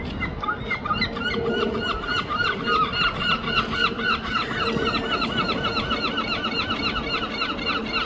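Two herring gulls calling together: a fast, steady run of short, repeated yelping notes, several a second.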